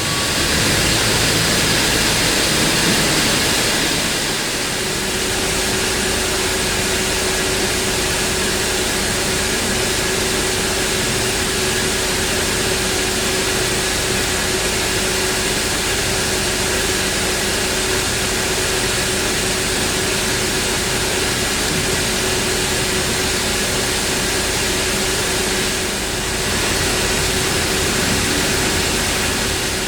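Bridgeport Torq Cut 22 CNC vertical machining center running under power: a steady hiss with a steady whine, easing slightly about four seconds in and again near the end.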